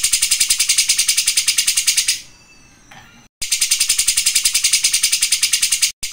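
Cucak jenggot, a caged bulbul, singing a fast, unbroken buzzy trill of more than ten sharp high notes a second. The trill breaks off for about a second just after two seconds in, leaving a few faint thin notes, then starts again.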